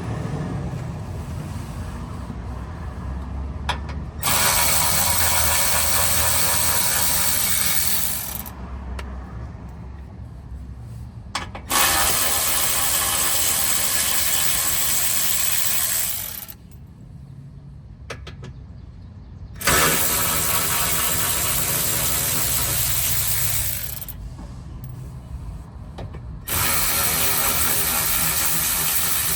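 Cordless ratchet running in four bursts of about four seconds each, spinning out 10mm bolts that hold a car's plastic undercover. Each run starts suddenly and stops, with quieter handling between the runs.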